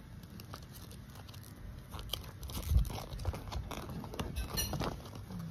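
Crinkling and rustling of a small toy packet's wrapper and a paper leaflet being handled and unfolded: a string of small crackles that gets busier about two seconds in, with one louder knock about halfway through.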